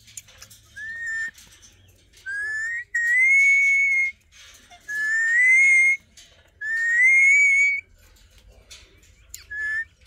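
Alexandrine parakeet whistling: about six clear whistled notes, each held up to about a second and rising slightly in pitch, with a short final note near the end.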